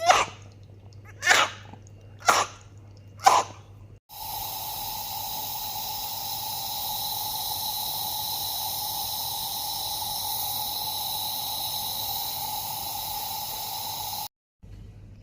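Four short coughs from a newborn baby with a cold, about a second apart. A steady hiss with a thin whining tone then takes over for about ten seconds and cuts off suddenly.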